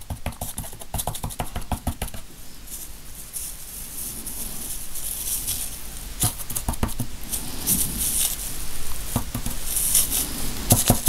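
Close handling noise of hands at work: a dense, irregular run of light crackles, rustles and taps, growing louder toward the end.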